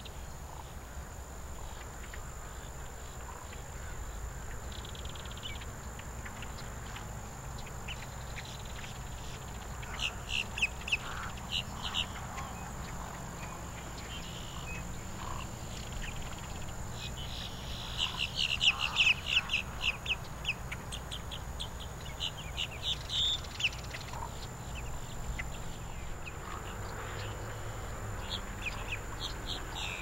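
Wild birds calling in a marsh: bursts of quick, high, repeated chirps, a short run about ten seconds in and a longer, louder one near the middle, over a thin steady high whine and a low background rumble.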